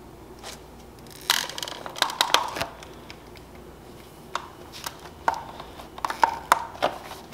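Plastic clicks, taps and creaks as a Lexus SC300 tail light's lens and housing are handled and pressed together by gloved hands. A brief rustling scrape comes a little over a second in, and a quicker run of clicks near the end.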